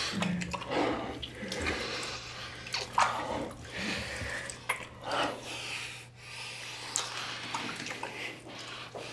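Two people kissing: irregular wet lip smacks with breathing between them.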